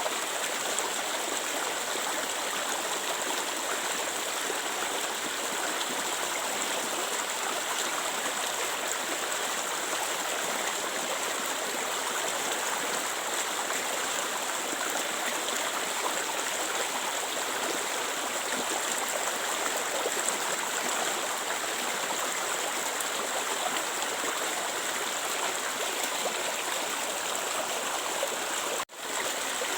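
Clear water flowing steadily with an even rushing and gurgling. Near the end it cuts out for a split second, then carries on.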